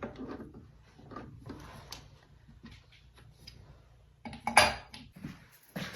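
Metal clinking and knocking as brass stock and tools are handled and fitted into a lathe chuck, with one loud ringing clank about four and a half seconds in.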